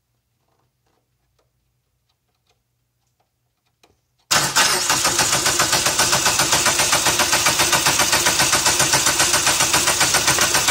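Chrysler PT Cruiser GT's 2.4-litre turbo four-cylinder engine, valve cover off, coming in abruptly about four seconds in and running with a loud, rapid clatter. The engine sounds like a diesel, a sign of an internal fault that the owner took for lifter tick rather than rod knock.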